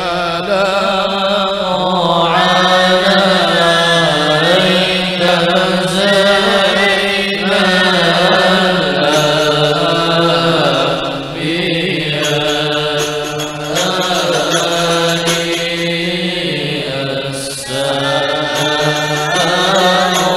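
Male voices chanting an Arabic devotional qasida, with long, drawn-out ornamented phrases sung in a slow, chant-like style.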